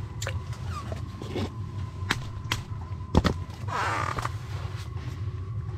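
Handling noises on the tent floor as a whitefish and gear are handled: a few sharp clicks and knocks, the loudest a little past three seconds in, then a brief rustle just before four seconds. A steady low rumble runs underneath.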